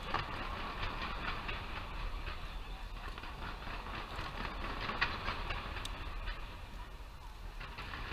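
Fireworks crackling and popping in a dense, continuous rattle over a low rumble, with one sharper bang about five seconds in.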